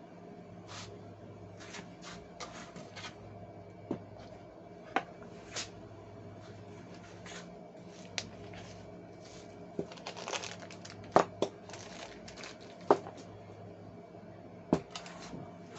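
Hands handling a watch case-back opener tool and its packaging: scattered light clicks, taps and rustling, with a few sharper knocks in the second half, over a steady low hum.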